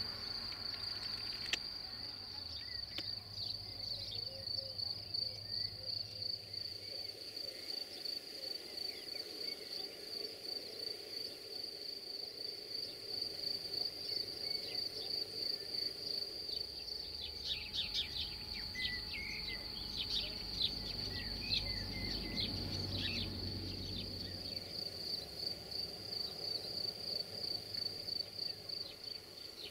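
Steady, high-pitched pulsing chirr of insects such as crickets in the grass, with a flurry of short bird chirps about two-thirds of the way through.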